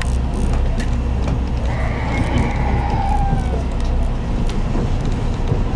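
Tour boat's engine running with a steady low rumble, mixed with wind noise on the microphone. A faint gliding tone comes and goes about two seconds in.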